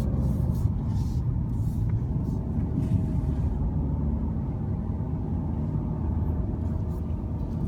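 Cabin sound of a Mercedes-Benz C220d four-cylinder turbodiesel being driven: a steady low rumble of engine and road noise heard from inside the car.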